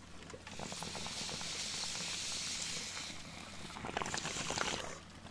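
Someone taking a long draw of cannabis smoke: a steady hissing inhale, with a rapid patter of small pops about four seconds in.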